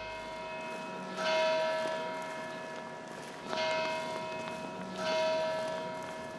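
A large tower bell tolling: three strikes, each left ringing and slowly fading, with the hum of an earlier stroke still sounding as it begins.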